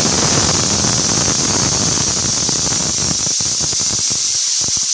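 Pressure cooker whistle blowing, letting off a jet of steam as a loud, steady, high-pitched hissing squeal; it shows the cooker has come up to pressure. Its lower sputtering thins out after about three seconds.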